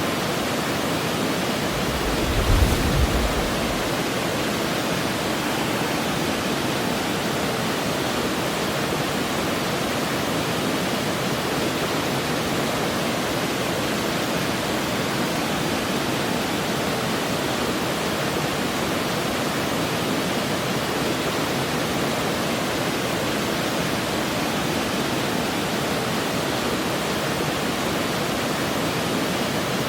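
Waterfall rushing steadily, a continuous even roar of falling water. A brief low rumble rises and fades about two seconds in.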